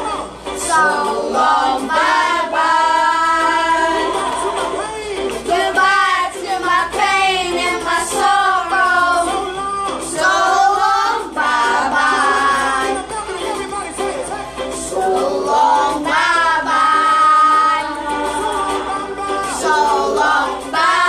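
Several children and adults singing a song together, one voice line with long held notes that rise and fall.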